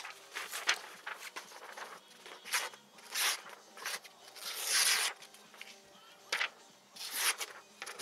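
Victorinox Hunter XS pocket knife blade slicing through a sheet of paper in a series of short, dry swishes, the longest about halfway through. It is a paper-slicing sharpness test of the edge after cutting cardboard.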